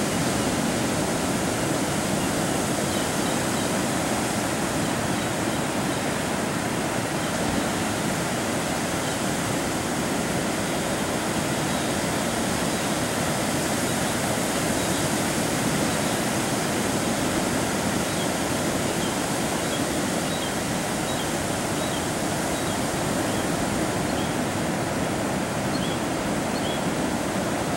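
Ocean surf breaking and washing on a sandy beach, a steady, unbroken rush of waves. Faint short high chirps come in over it in the last several seconds.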